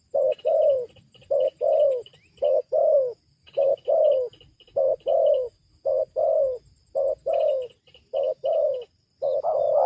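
Spotted dove cooing: a steady run of short, low coos, some single and some in quick pairs, about two a second.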